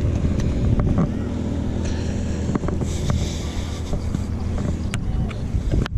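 Steady low engine drone, like an outboard motorboat running on the lake, with a few light knocks and rustles of handling, and a burst of hiss for a second or two near the middle.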